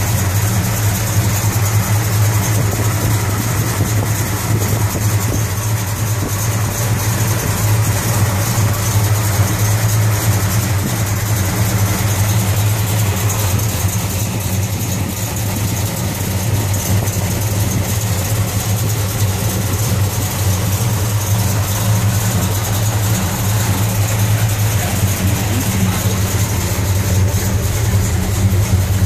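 Dodge 340 four-barrel V8 idling steadily, heard close to the open engine bay.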